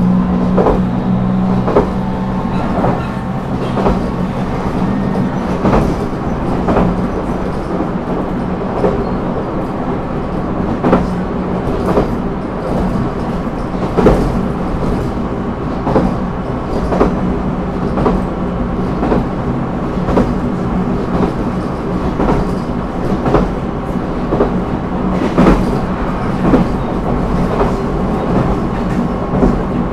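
Running sound heard inside a JR Kyushu 813 series electric multiple unit's motor car, MoHa 813-1003, under way at speed. There is a steady rumble and a low motor hum, strongest at the start, with repeated clicks as the wheels pass over rail joints.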